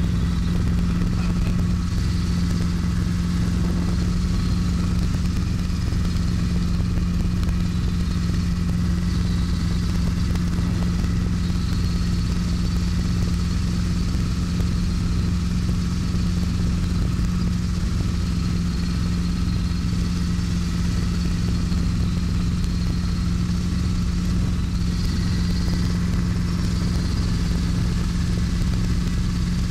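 Small helicopter in flight heard from inside the cabin: a steady engine and rotor drone with a strong low hum that holds the same pitch throughout.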